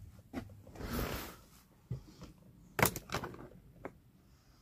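Handling noise from the recording phone as it is moved and set down: a rustle about a second in, then a few knocks, the loudest and sharpest just under three seconds in.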